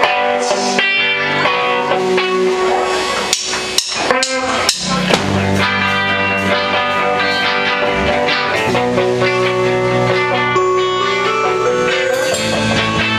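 A band playing a guitar-led song live, with drums.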